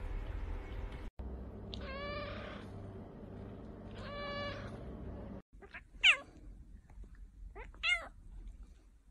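Kittens meowing: a ginger kitten gives two short mews, then another kitten gives two higher, sharper mews that sweep up and down, the first of these the loudest.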